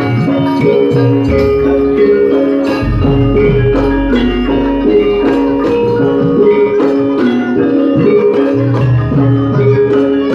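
Javanese gamelan music accompanying a lengger dance: struck metal mallet instruments play repeating melodic figures over deep low notes.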